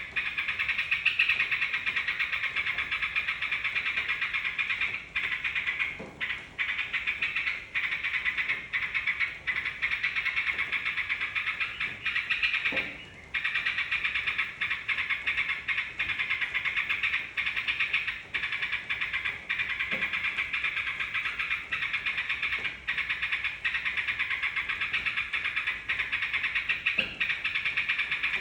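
A dense, unbroken chorus of yellow-vented bulbuls (trucukan) chattering together, the kind of recording played as a lure to get other songbirds to call. It drops out briefly about six seconds in and again around thirteen seconds.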